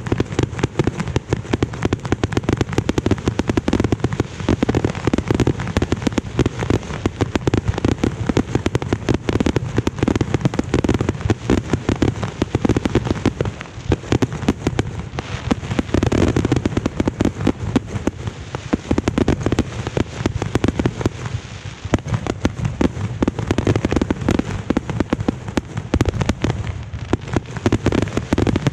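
Consumer fireworks cakes and aerial shells firing and bursting in a dense, unbroken barrage of booms and crackles.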